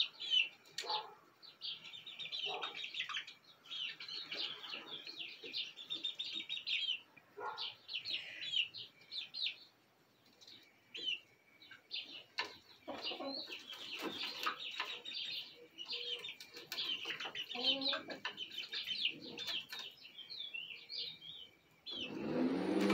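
A roosting flock of young chickens peeping and chirping in quick, high calls, with a few lower clucking calls in the middle. A louder steady sound with held tones starts just before the end.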